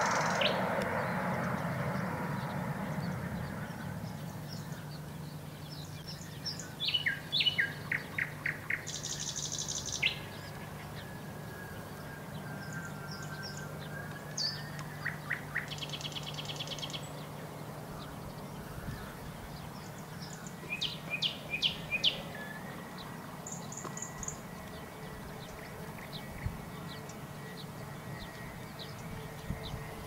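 Nightingale singing in separate phrases with pauses between: bursts of rapid trills, buzzy rattles and a long drawn-out whistle. Jet noise from an Ilyushin Il-76 fades out over the first few seconds, and a low steady hum lies underneath.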